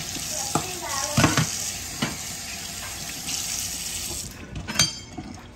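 Tap running into a sink, shut off about four seconds in, with a few knocks and a ringing clink near the end.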